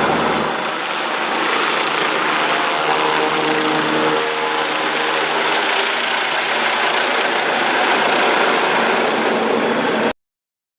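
Agusta Caweel CW-95 helicopter sound effect: steady engine and rotor running, which cuts off suddenly near the end.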